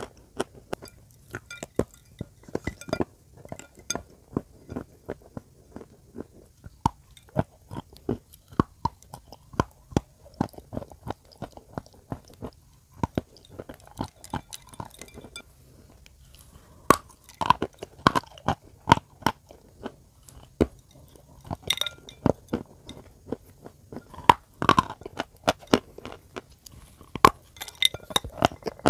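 Chalk pieces coated in clay paste being bitten and chewed close to the microphone: a long run of irregular sharp crunches and crackles, with louder clusters of bites about two-thirds of the way through and near the end.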